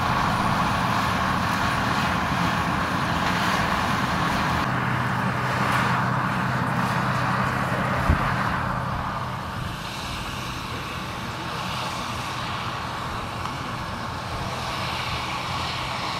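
John Deere 7530 tractor's six-cylinder diesel engine running steadily under load as it drives across the field pulling a fertiliser spreader. It grows quieter in the second half as the tractor heads away, with a single sharp click about eight seconds in.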